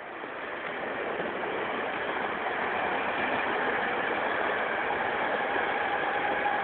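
A passing vehicle, growing steadily louder as it approaches, with a steady whine coming in near the end.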